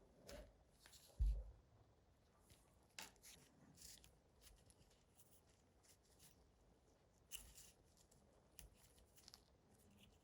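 Faint handling noises: scattered small clicks and taps, with one low thump about a second in.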